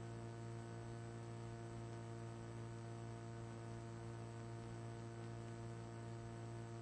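Steady electrical mains hum with a row of overtones and faint hiss, unchanging throughout.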